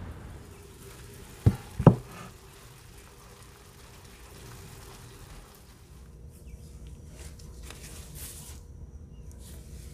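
Two sharp knocks about half a second apart, as of a ceramic baking dish set down on a wooden tabletop, then a faint steady hiss with a few light ticks.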